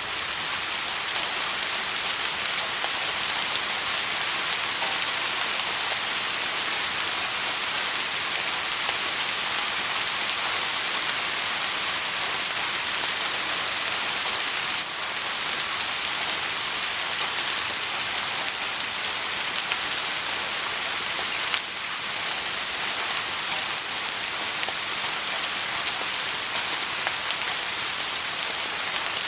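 Steady soft rain, a dense even patter of raindrops falling on a surface, without thunder.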